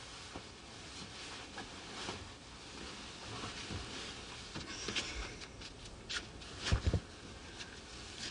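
Quiet rustling of bedclothes and soft movement as someone climbs out of bed, with scattered light clicks and a couple of dull thumps about two-thirds of the way through.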